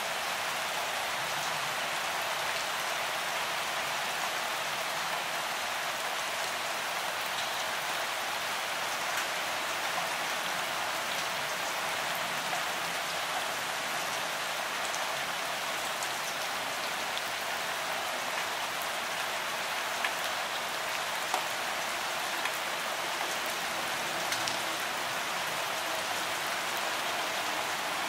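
Steady rain falling: an even, hissy patter with no low rumble, broken by a few sharper single-drop ticks.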